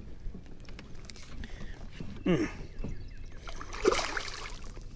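A big hooked largemouth bass thrashing and splashing at the surface right beside a kayak, with a loud splash about four seconds in. A short grunt-like vocal sound comes a couple of seconds in.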